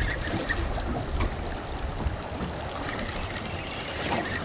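Steady rush of fast-flowing river water, with wind on the microphone.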